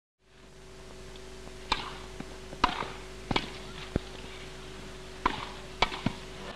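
Tennis rally: sharp pops of a racket hitting the ball, about eight in all, roughly every half second to a second, over a steady hum.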